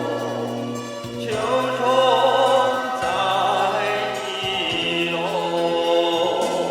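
Music: a sung melody with vibrato over held low accompaniment notes.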